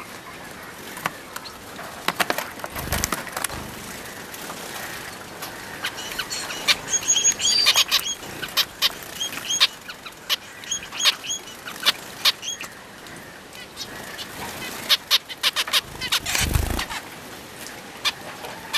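Pet finches bathing: repeated quick wing flutters and splashes, with short high chirps mostly through the middle stretch.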